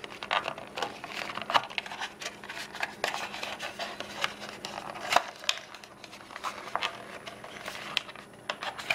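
Fingers handling a plastic earbud charging case while pulling the earbuds out of their slots: irregular small clicks, taps and scratchy rubbing.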